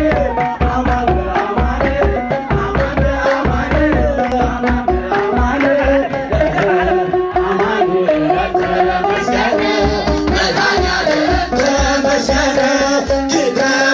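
Live Tigrinya song amplified through a PA loudspeaker: a man singing into a microphone over a fast, steady hand-drum beat.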